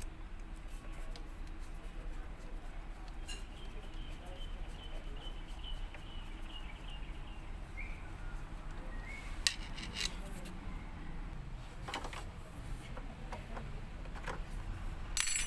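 Scattered light clicks and clinks of small hard objects being handled, with a louder cluster of clicks near the end. A faint, thin high tone runs through the first half.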